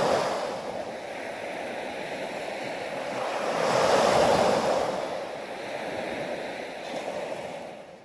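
Ocean waves washing in, one wave swelling louder about four seconds in, then fading out near the end.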